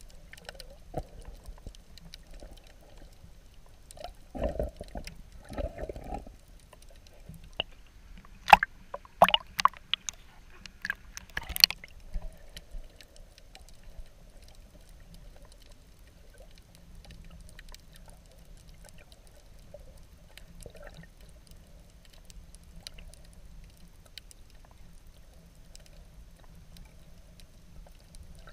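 Muffled underwater sound picked up by a submerged camera: water moving around the camera, with a couple of muffled surges about four seconds in and a run of sharp clicks and crackles about eight to twelve seconds in.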